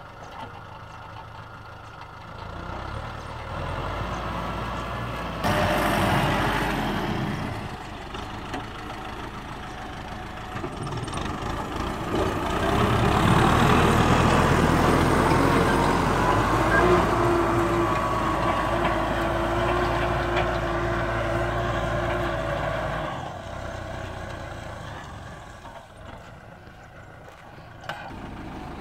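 Kubota M6040SU tractor's diesel engine running under load as it pulls a disc plough through wet soil. It grows louder about halfway through as the tractor comes close, then fades as it moves away.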